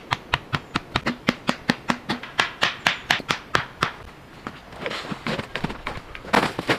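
A fast run of sharp knocks, about five a second, for about four seconds, then softer scraping and one louder knock near the end.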